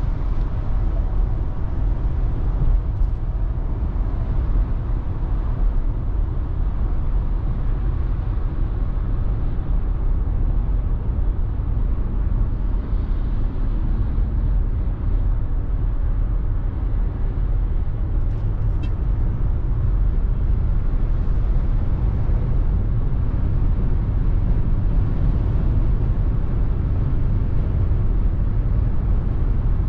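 Cabin noise inside a 2021 Ford Mustang Mach-E AWD electric SUV accelerating at motorway speed: a steady low rumble of tyres and wind, with no engine note.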